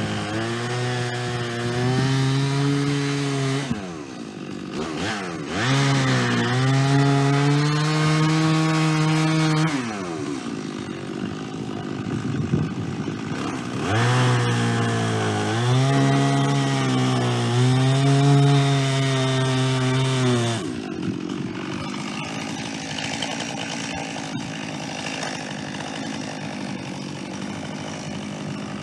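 Chainsaw on a chainsaw mill cutting through white pine, run at high revs in three long stretches with brief easings of the throttle between them. About twenty seconds in the engine note drops away, leaving a lower, quieter sound.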